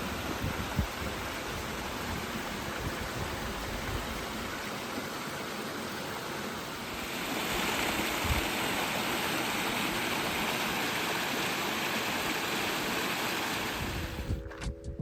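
Steady rushing water, growing louder about seven seconds in.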